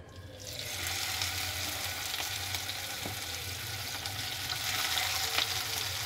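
Spice-marinated whole quails sizzling in hot oil in a frying pan. The sizzle starts as the birds go into the pan and builds over the first second, then runs on steadily with scattered crackles.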